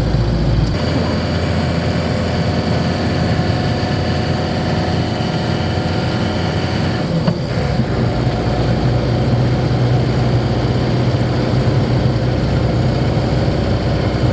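Camper van engine running on the road with a new timing belt, a steady drone heard from inside the cab. The low engine note shifts about a second in and again about halfway through.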